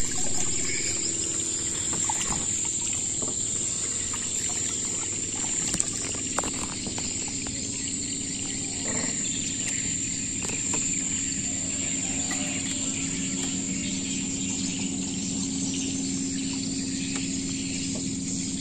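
Steady high-pitched drone of insects, such as cicadas or crickets, with a low steady hum underneath that grows a little about halfway through.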